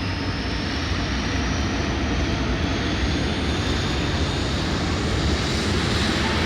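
Fighter jet engine running loud and steady, with a high whine slowly rising in pitch.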